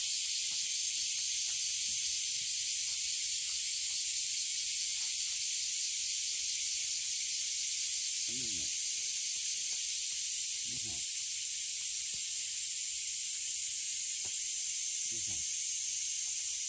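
Steady, high-pitched chorus of summer cicadas, with a few short, low, falling calls about halfway through and near the end.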